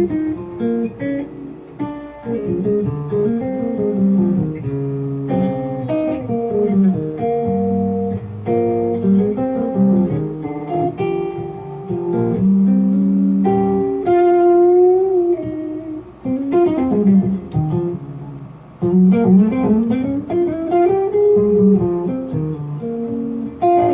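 Probett 59 guitar played solo, a run of single notes and chords with notes bent or slid in pitch, notably around the middle and later on.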